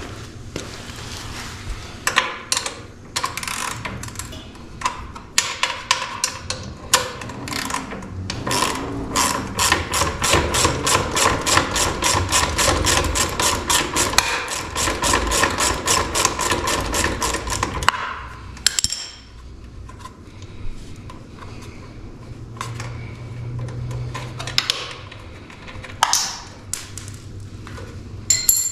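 Socket ratchet clicking while backing off the exhaust mounting bolt and nut on a motorcycle. It starts with scattered clicks, then a fast, even run of clicks lasts about nine seconds and stops suddenly, followed by a few scattered knocks.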